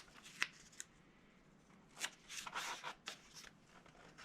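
Tape being worked onto laser-cut cardboard pieces: a single click near the start, then faint rustling and crackling of tape and cardboard from about two seconds in, lasting about a second and a half.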